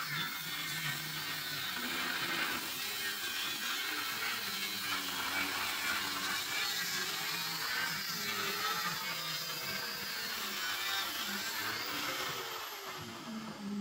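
Angle grinder with a cut-off disc cutting through the steel frame of a Razor MX650 dirt bike. The grinding is steady and hissing, and the motor's pitch wavers as it works under load. Near the end the disc slows and the sound drops.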